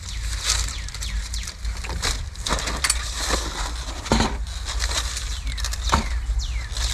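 Food packaging being handled: crinkling plastic and several sharp clicks, over a steady low rumble.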